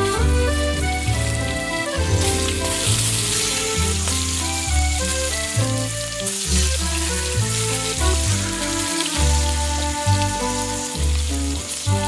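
Chicken curry frying and sizzling in a pan, a steady hiss, under background music with a pulsing bass line.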